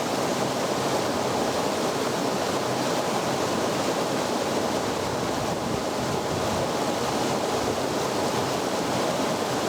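Mountain torrent rushing over a small waterfall: a steady, even rush of falling and flowing water.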